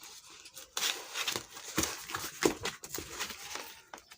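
Parcel packaging being handled and opened: irregular crinkling, rustling and tearing with scattered small clicks, louder from just under a second in.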